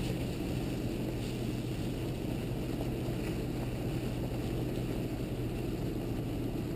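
Off-road vehicle driving along a dirt trail, its engine a steady low drone under tyre and wind noise, heard from a camera mounted on the outside of the vehicle's body.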